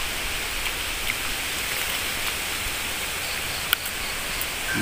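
Steady hiss of outdoor background noise, with a few faint clicks as small lagnob fruits are bitten open, the sharpest about three-quarters of the way through.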